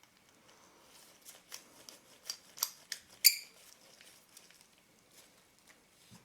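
Small metal parts of an old loupe clicking and clinking as they are handled and fitted together: a run of light ticks with one sharper clink about three seconds in.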